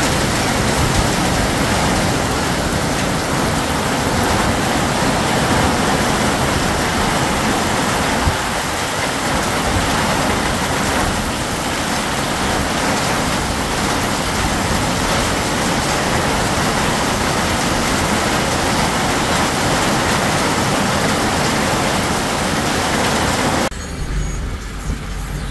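Heavy rain pouring onto a flooded street: a loud, steady hiss of downpour. Near the end it cuts suddenly to a quieter low rumble inside a moving car.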